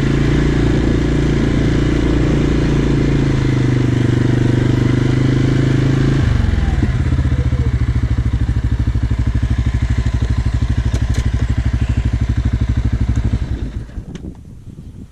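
Small farm utility vehicle's engine running, then dropping to a pulsing idle about six seconds in, and shut off near the end.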